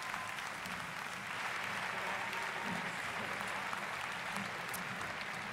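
Large arena crowd applauding steadily: a dense wash of many hands clapping.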